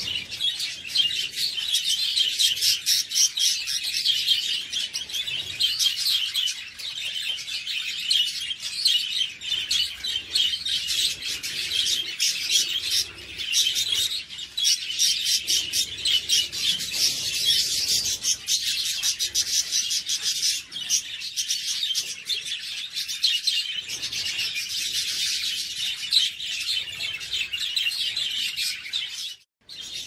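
A flock of budgerigars chattering and chirping all at once, a dense, continuous twitter of many birds that breaks off for a moment near the end.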